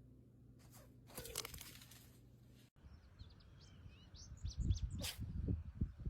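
A short rustling, crinkling noise about a second in. After an abrupt cut, small birds chirp in a quick series of short, high chirps over low rumbles and thumps.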